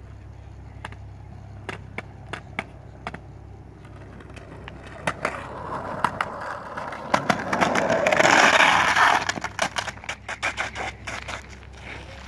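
Skateboard wheels rolling over pavement: a few separate clicks at first, then a rolling rumble that swells to its loudest about eight seconds in, followed by a rapid string of clicks and clacks.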